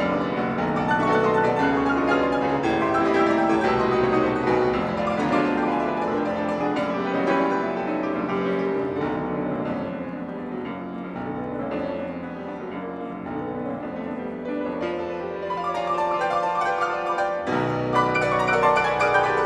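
Two grand pianos playing a classical piece together in a dense, continuous texture. It softens in the middle and grows louder again near the end, with low bass notes coming in.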